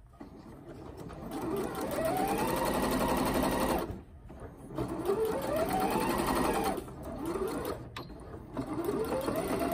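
Janome 1030MX computerized sewing machine stitching a zipper into fabric in three short runs. Each run starts with a rising motor whine as it speeds up, and there are brief stops at about four and eight seconds in.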